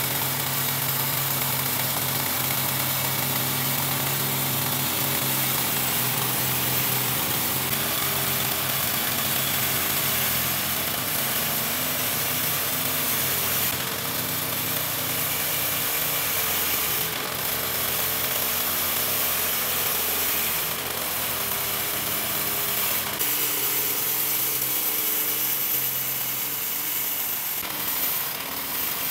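Engine-driven horizontal band sawmill running steadily under load, its band blade cutting lengthwise through a log, with a few brief clicks in the second half.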